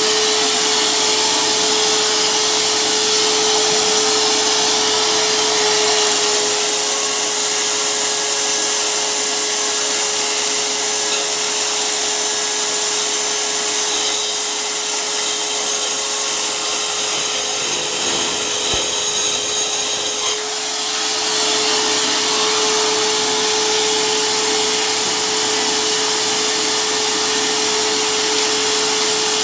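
Hyper Tough mini circular saw's motor running steadily with a constant whine. From about six seconds in, a harsher high-pitched hiss joins it for about fifteen seconds, then stops suddenly with a brief dip before the steady whine carries on.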